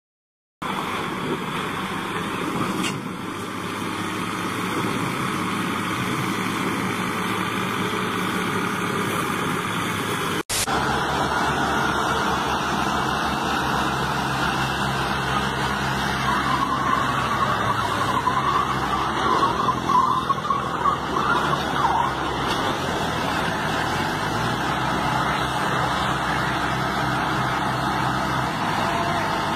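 Heavy vehicle engines running steadily: dump trucks during the first ten seconds, then, after a brief break, farm tractor engines working under load as one tractor tows another pulling a loaded sugarcane trailer. A wavering higher tone rises and falls between about sixteen and twenty-two seconds in.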